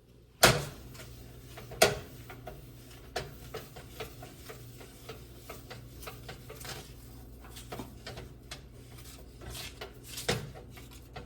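Kitchen handling sounds: scattered knocks and clinks of cookware and utensils being moved, the loudest about half a second in and again near the end, over a steady low hum.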